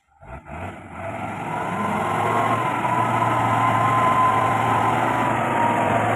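Mitsubishi Fuso 220PS truck's diesel engine running hard under load as the loaded truck climbs the muddy slope toward the listener, with a steady low drone and a high whine. It grows louder over the first two seconds, then holds steady.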